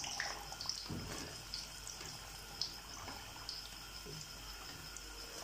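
Hot oil sizzling and crackling with small pops around samosas deep-frying in a wok as a wire-mesh skimmer lifts them out, with a few light clicks.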